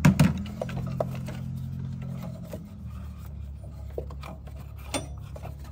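Rubbing, scraping and scattered clicks of a serpentine belt and a belt tool with its socket being worked out of a cramped engine bay, with a sharp knock right at the start. A steady low hum runs underneath.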